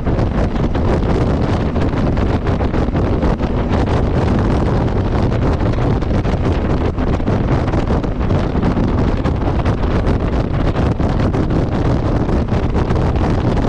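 Steady, heavy wind buffeting on the microphone of a moving motorcycle, with the bike's running noise underneath.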